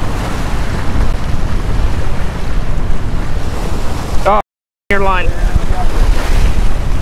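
Heavy wind noise on the microphone over surf washing and breaking against the rocks of a jetty-like rock groin. The sound cuts out completely for about half a second midway, with a brief voice on either side of the gap.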